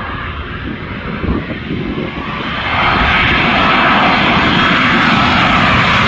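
Airliner passing low overhead on its landing approach. The engine noise swells sharply a little under three seconds in and stays loud.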